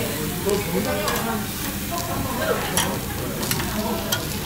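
Soy-marinated pork ribs sizzling on a tabletop charcoal grill, with metal tongs clicking sharply against the grate a few times as the meat is turned.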